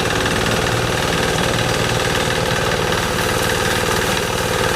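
Engine of a water pump running steadily, with a fast, even chugging throughout, as it pumps water out of a canal to drain it.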